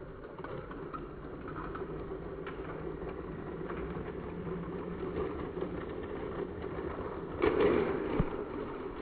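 Lego train's small electric motor whirring steadily as the locomotive runs along plastic track, with a few light clicks. A louder clatter comes about seven and a half seconds in.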